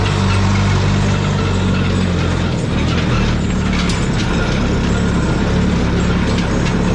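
Heavy diesel logging machine running steadily; its engine note drops about two and a half seconds in. Scattered metallic clicks and clanks come through over it.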